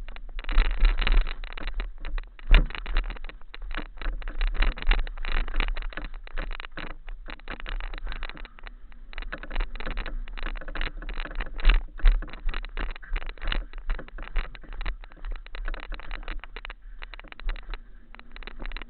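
Wind rumbling on the microphone and the rattle of a mountain bike ridden over a rough, rocky trail: a dense, irregular clatter of knocks with one sharp hit about two and a half seconds in.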